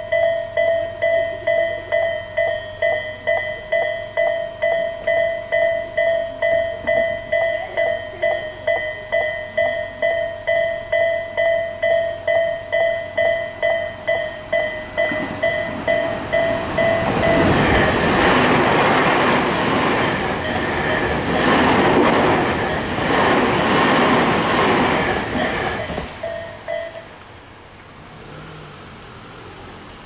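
A Japanese level crossing's electronic warning bell, in the Isesaki style, rings a little over twice a second. Partway through, a train passes loudly over the crossing. Soon after the train has gone, the bell stops.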